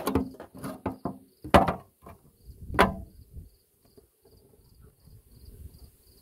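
Wooden and plastic beehive parts knocking and scraping as they are handled and fitted together, with several sharp knocks in the first three seconds. An insect chirps faintly in an even rhythm, about three times a second.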